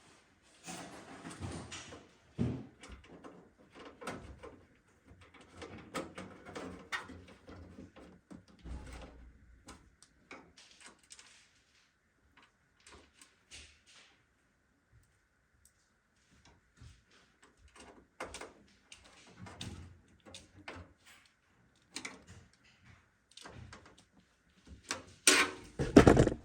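Irregular clicks, scrapes and short knocks of parts and screws being handled in a metal PC case during assembly, with a louder clatter near the end.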